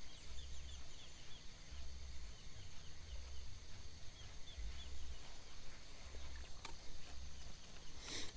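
Quiet outdoor ambience with a run of faint, quick chirping calls, mostly in the first half, and a brief rustle near the end.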